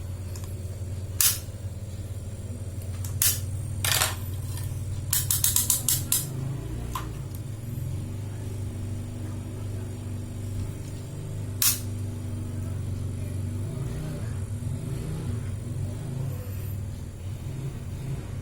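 Refrigerator compressor humming steadily, with sharp clicks and taps over it, including a quick run of about half a dozen clicks between five and six seconds in.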